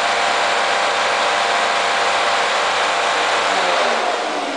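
Vacuum cleaner running steadily: a loud motor whine over a rush of air, easing down a little near the end.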